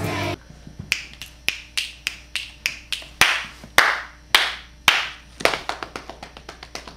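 Hands clapping a steady rhythm, about three claps a second. The claps are loudest between about three and five seconds in, then come quicker and softer near the end.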